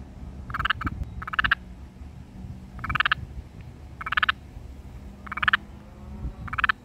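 A toad croaking: six short buzzing calls from its inflated vocal sac, the first two close together, then about one a second.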